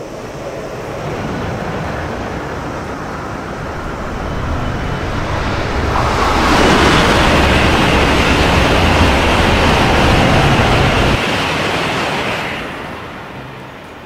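Train passing by: a rushing rumble that swells, is loudest for several seconds mid-way, then fades away, with no distinct wheel clicks.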